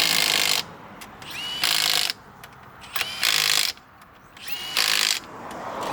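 Impact wrench running in short bursts about every second and a half, each opening with a quick rising whine as it spins up, working the wheel nuts during a rally car tyre change.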